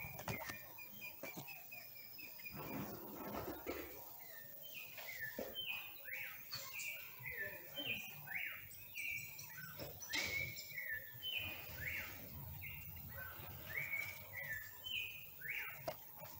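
Mockingbird giving a quick series of short, high chirps, about two or three a second, with a few faint knocks among them.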